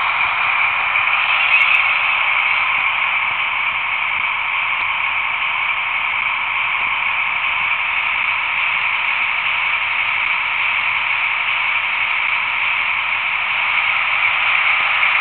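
Roco H0 model of a DB class 221 diesel locomotive running under its sound decoder: a steady diesel engine sound from the model's small speaker, thin and hissy with no bass.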